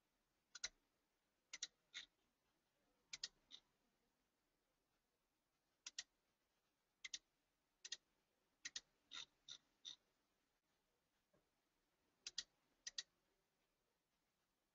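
Computer mouse button clicking about a dozen times at irregular intervals, each click a quick press-and-release pair, with a pause of a couple of seconds near the end.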